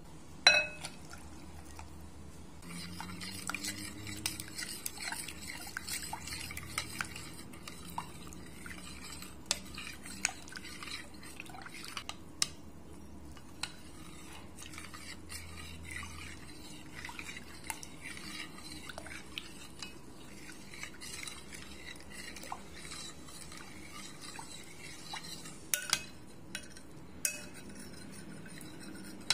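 A spoon stirring custard powder into evaporated milk in a pot, scraping and clinking against the pot. A sharp clink comes about half a second in, and a few more come near the end.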